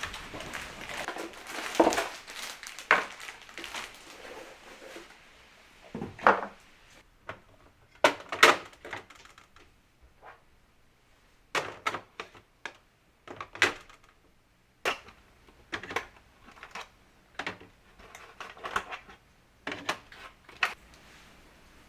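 Containers being handled and set down, giving irregular clicks, knocks and clatter: dense for the first few seconds, then single knocks every second or two.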